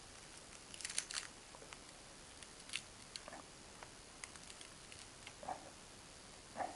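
Faint, scattered handling noises: small clicks and crinkles, a brief crinkly rustle about a second in, and a few light knocks near the end.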